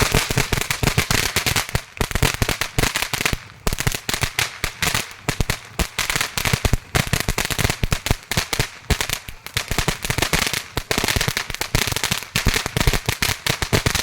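A firework going off as a rapid, unbroken string of sharp pops and crackles that starts abruptly and keeps going.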